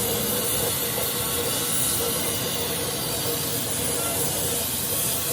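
Steady loud hiss with a faint steady tone running through it.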